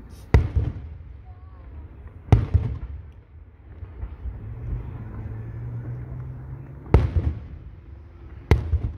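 Aerial fireworks shells bursting overhead: four sharp booms, two in the first few seconds and two near the end, each trailing off in a rumbling echo.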